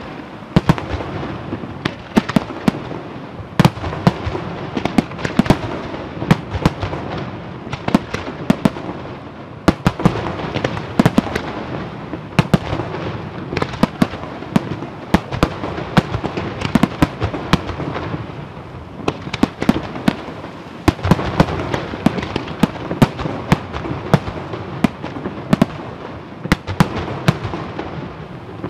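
Aerial fireworks display: a rapid barrage of shell bursts, with sharp bangs several a second over a continuous crackling haze.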